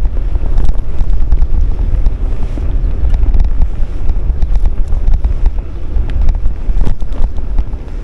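Strong wind buffeting the microphone: a loud, gusting low rumble, with a brief click about seven seconds in.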